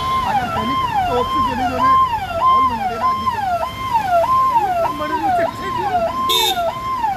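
Electronic vehicle siren sounding a fast rising-and-falling wail, about two cycles a second, over faint voices. A brief sharp blip cuts in about six seconds in.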